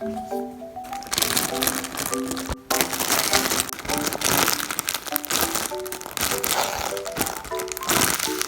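Plastic packaging crinkling and crackling as it is handled, over light background music with a simple plinking melody. The crinkling starts about a second in and eases off near the end.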